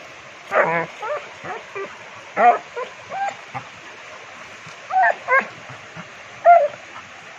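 Rottweilers giving a string of short yips and whines while they play and dig, some rising in pitch, over the steady wash of the river.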